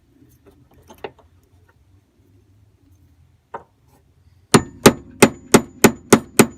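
Hammer striking metal on a truck door hinge, hammering on a seized hinge pin to drive it out. A couple of light taps come first, then seven sharp blows at about three a second near the end, each with a short metallic ring.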